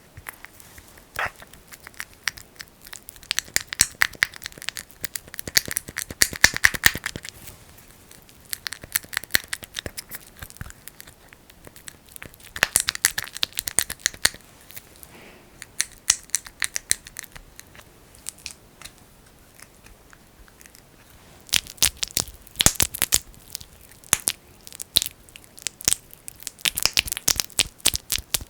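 Fingers kneading and rubbing thick, sticky Vaseline (petroleum jelly) close against the microphone in an ear massage, making dense sticky crackling in bursts of a few seconds with short, quieter pauses between.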